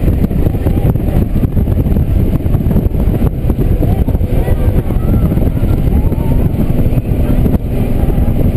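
Motorcycle riding at road speed on a Honda GL1500 SE Goldwing: a loud, steady rumble of wind buffeting the microphone, with the flat-six engine and tyre noise running underneath.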